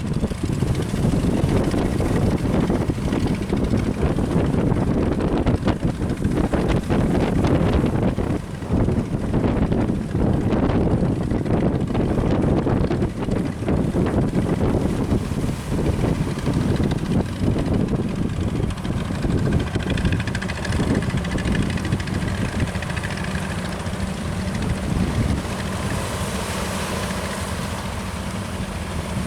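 Strong wind buffeting the microphone over a fishing boat's engine running steadily. A steady engine hum comes through more clearly in the last third.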